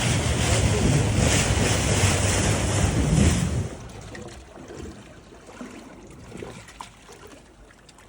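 Loud wind buffeting the microphone over rushing water on open sea. It cuts off suddenly about three and a half seconds in, leaving faint water lapping and trickling.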